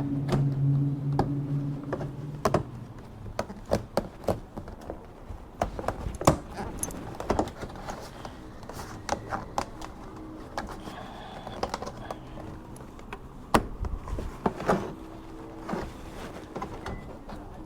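Scattered light clicks and taps of a plastic bumper vent being handled and pressed into place on the bumper. A low steady hum sounds at the start and stops about two and a half seconds in.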